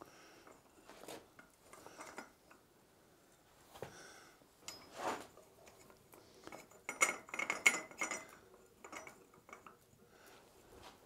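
Steel clinking and scraping as a red-hot bar is levered around a steel pipe mandrel with a bending rod, wrapping the eye of a forged fire poker. Scattered clinks, with the loudest run of quick clinks about seven seconds in.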